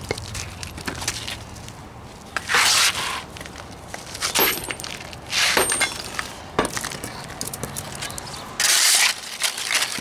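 Old brick steps being broken out by hand: loose bricks and mortar rubble scraping and clattering, with about five louder scrapes and crashes and smaller clicks of tool on brick. The mortar is rotted, so the bricks come apart easily.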